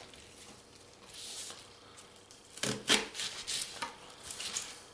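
Knife cutting leek on a wooden cutting board: a couple of sharp knocks of the blade on the board about halfway through, then a few lighter cuts near the end.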